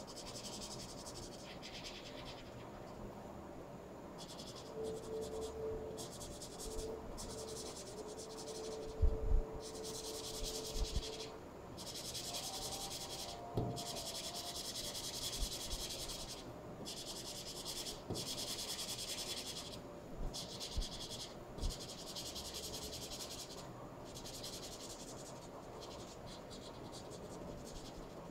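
Felt tip of a highlighter marker scratching across paper in back-and-forth colouring strokes: a dry hiss in runs of one to two seconds with short breaks between them. A few soft knocks near the middle, the loudest about nine seconds in.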